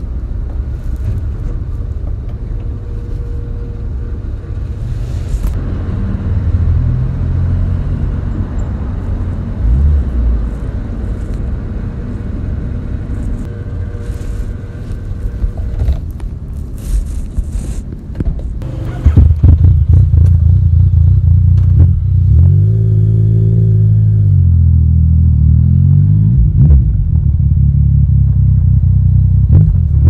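Yamaha Tracer 900 GT's three-cylinder engine through an Akrapovic exhaust, after a Woolich ECU tune. A low, steady rumble runs through the first part. About two-thirds of the way in the engine suddenly gets much louder, and it revs up and down as the bike rides off, its pitch climbing again near the end.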